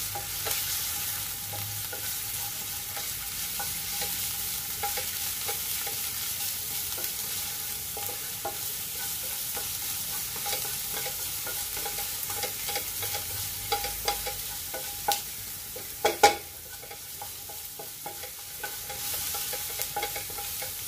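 Chopped garlic sizzling in oil in a nonstick frying pan, stirred with a wooden spatula that scrapes and taps against the pan throughout. A few louder knocks of the spatula come about three quarters of the way through.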